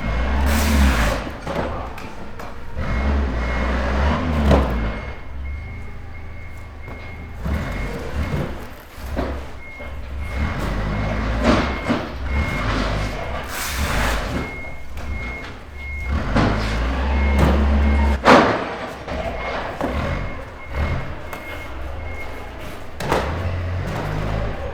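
Warehouse loading dock: a vehicle's reversing beeper sounding in quick repeated beeps over a low engine rumble, with scattered clanks and knocks of loading work. The beeping stops near the end.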